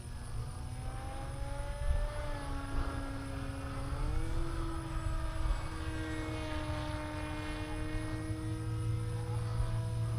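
Brushless 3536/5 motor and propeller of an FPV flying wing whining in flight. The pitch rises about two seconds in and again about four seconds in as the throttle is raised, then holds steady over a low rumble.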